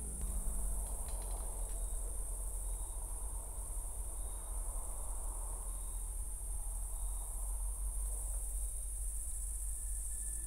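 Woodland ambience: a steady high insect chorus over a low rumble, with a few faint clicks in the first couple of seconds.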